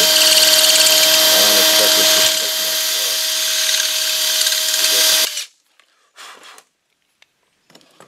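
Electric hand drill running a twist bit through an aluminum cart frame, enlarging a hole to take a slightly larger metric caster bolt. It runs with a steady whine, eases a little about two seconds in, and stops suddenly about five seconds in, leaving only faint handling sounds.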